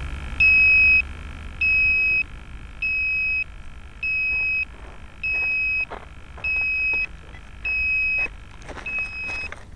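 Electronic beeper on a landed RC plane sounding a steady high beep about half a second long, repeating a little less than once a second, eight times. Faint clicks and rustles come between the beeps in the second half.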